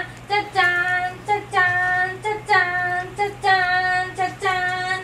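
A woman singing a slow song in a high, clear voice, in short held notes with breaths between phrases, over a faint steady low hum.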